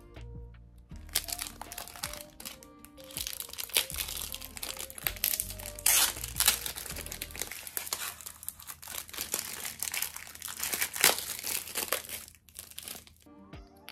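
Clear plastic wrappers on small acrylic figure stands crinkling as they are handled and torn open, with the loudest crackles about six and eleven seconds in. Light background music plays underneath.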